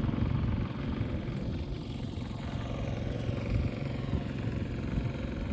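A vehicle engine running steadily at idle, a continuous low rumble.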